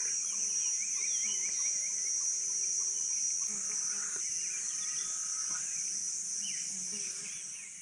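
Steady high-pitched chorus of insects, with brief chirps over it, fading out near the end.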